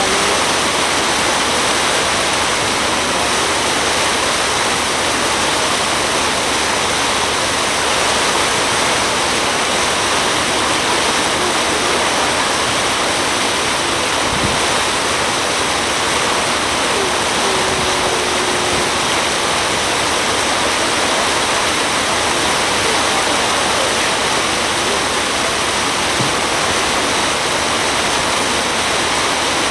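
Steady rushing noise of a cruise boat underway on a lake: water streaming past the hull, mixed with wind.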